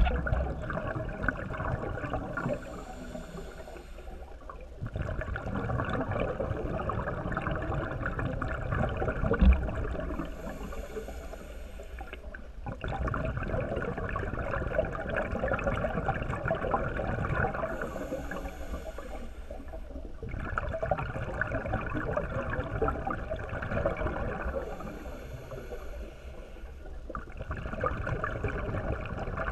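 Underwater breathing of a scuba diver through a regulator: a short high hiss on each inhale, then a longer rush of exhaled bubbles, repeating about every seven and a half seconds.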